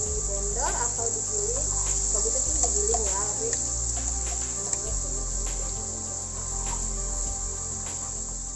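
A steady high-pitched cricket trill over a low hum, with scattered light clicks of a plastic spoon scooping ground spice paste into an oiled frying pan.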